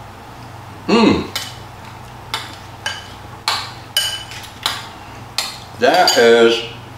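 A spoon clinking against a bowl about seven times, in sharp separate taps, as food is scooped from it. A man makes a short voiced sound about a second in and a longer one near the end.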